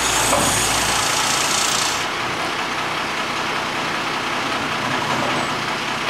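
Crane truck's engine running steadily while the boom holds a machine on its sling, with a high hiss over the first two seconds.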